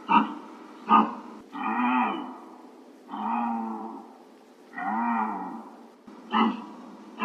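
Deer calling: a few short sharp calls alternating with three drawn-out bleats of about a second each, each rising and then falling in pitch.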